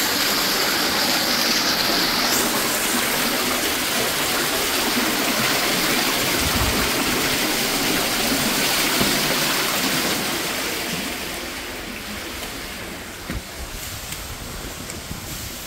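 Floodwater gushing up out of a toilet bowl and pouring over the rim onto a flooded floor, the plumbing backing up during a flood. A steady, loud rush of water that fades to a quieter wash after about ten seconds.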